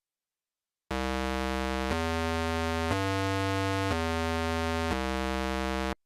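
Electronic synthesizer music: five steady held notes of about a second each, each at a different pitch, starting after a second of silence and stopping abruptly.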